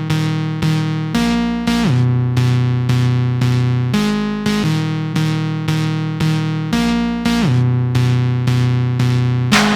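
Instrumental music: synthesizer or keyboard chords repeated in a steady pulse of about three strikes a second over a bass line that shifts every couple of seconds, with short sliding drops. Drum beats come in near the end.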